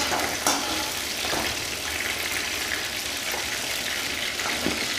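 Garlic cloves, ginger and green chillies sizzling gently in oil in a kadhai, being sautéed without browning, while a spatula stirs them and scrapes or taps the pan a few times.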